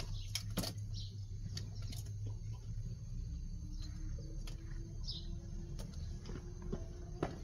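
A small open wood fire crackling with scattered sharp snaps while it is tended, over a low steady hum. A few short high bird chirps come in, about one and a half seconds in and again about five seconds in.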